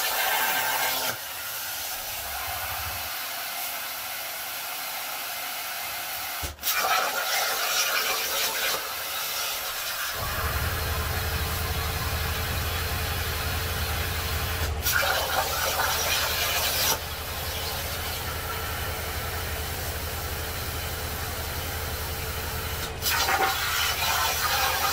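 Jasic Cut 45 plasma cutter on a CNC table cutting sheet metal. The arc hisses loudly in bouts of a few seconds, each starting after a brief break, with a softer hiss between cuts as the torch moves to the next one. A low steady hum comes in about ten seconds in.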